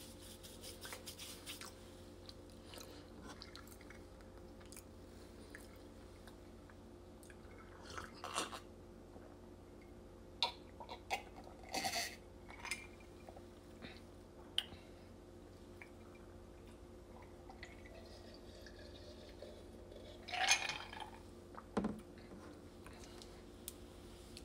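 Close-up chewing and mouth sounds from someone finishing a mouthful of chicken tenders and fries: scattered clicks and a few short wet bursts, the loudest about two-thirds of the way through, over a steady low hum.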